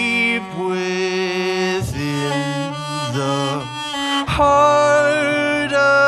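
Cello bowed in long held notes with vibrato, the melody changing pitch every second or so, with a louder swell about four seconds in.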